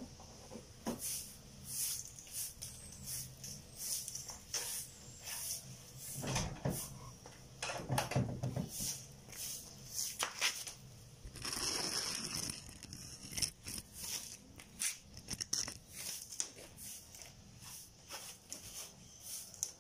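Broom sweeping a concrete floor: short, irregular swishing strokes, about one or two a second, with one longer stroke a little before halfway.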